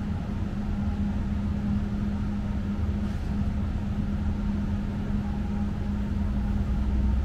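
Tram running, heard from inside the passenger cabin: a steady electric hum over a low rumble from the wheels and running gear, the rumble growing slightly louder near the end.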